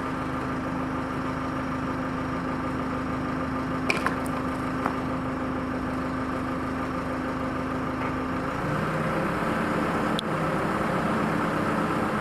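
Forklift engine running steadily, its note changing about two-thirds of the way through as the engine speed shifts, with a few sharp clicks or knocks.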